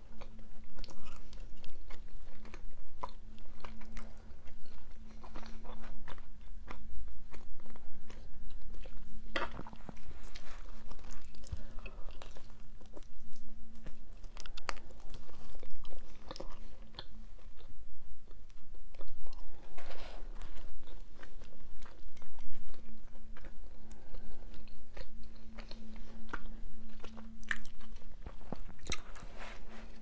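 Close-miked chewing and biting of a mini cheese pizza: irregular wet mouth sounds with many small sharp clicks and crunches.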